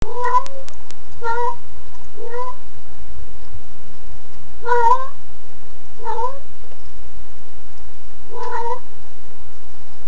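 A cat meowing six times, each a short call that rises in pitch, over a steady low rumble.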